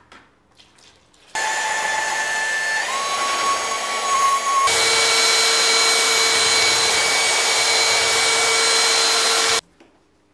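Handheld electric paddle mixer stirring skim-coat filler and water in a plastic bucket. It starts about a second and a half in, steps up twice to a higher, louder whine, and stops suddenly about a second before the end.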